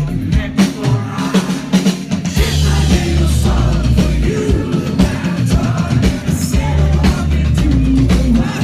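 Live band performance heard through a phone or camera microphone in the crowd: heavy bass, drum kit and a singing voice, loud and somewhat distorted.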